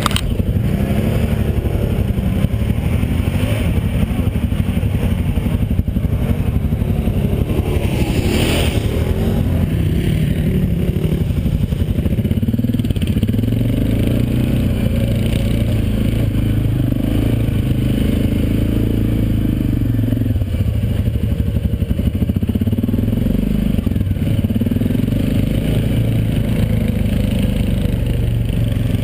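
Quad bike (ATV) engine heard from aboard while riding, running continuously, its pitch rising and falling as the throttle opens and closes.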